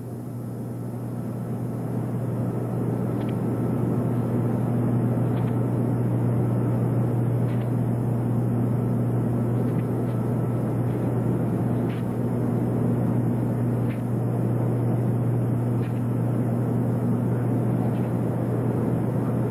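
Steady low hum with a haze of hiss and rumble, marked by faint ticks about every two seconds.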